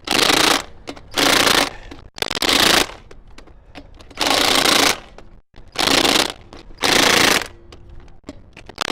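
Cordless Ingersoll Rand 1/2-inch impact wrench hammering lug nuts tight on a cargo van's wheel, in six short bursts of about half a second each.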